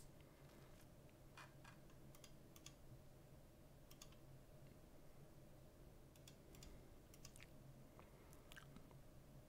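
Near silence: room tone with a low steady hum and a dozen or so faint, sharp computer mouse clicks scattered through it.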